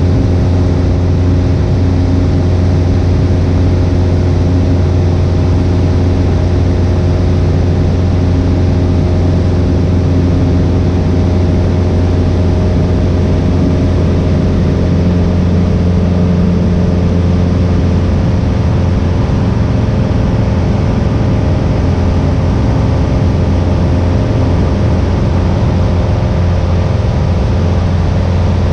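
Piper Warrior II's four-cylinder Lycoming engine and propeller running at a steady in-flight drone, heard from inside the cabin.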